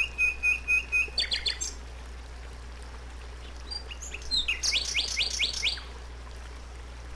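Songbirds singing in a recorded nature soundscape, with a waterfall's rush faintly behind: clear repeated notes about four a second, then a few quick downward-sweeping notes about a second in. After a pause of a couple of seconds comes a fast run of falling notes. A low steady hum lies under it all.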